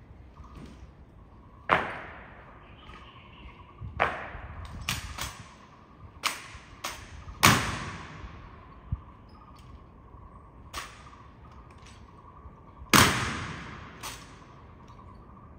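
Honor guard drill: about a dozen sharp, echoing strikes of rifles and boots at irregular intervals. The loudest come about 2, 7.5 and 13 seconds in.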